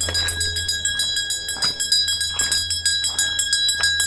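A bell rung rapidly and continuously, its steady ringing tone held under fast repeated strokes.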